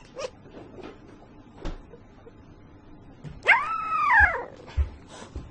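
A puppy gives one high whine, about a second long, that rises and then falls in pitch, with a few soft knocks around it.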